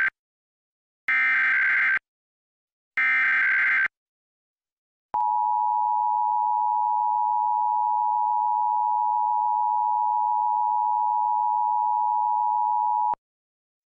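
Emergency Alert System SAME header: the end of one burst of screechy digital data tones, then two more bursts of just under a second each, with short silences between them. After a pause comes the EAS attention signal, a steady two-note tone held for about eight seconds that cuts off sharply. This is the encoded header and alert tone that open a monthly EAS test.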